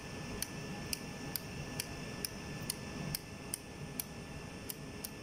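Label gun's print-band selector knob clicking through its detents as it is turned one step at a time through the letters, about two clicks a second.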